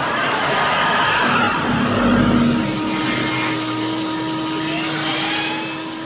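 Film sound of a DeLorean sports car revving its engine and spinning its tyres, with a steady hum joining about two seconds in.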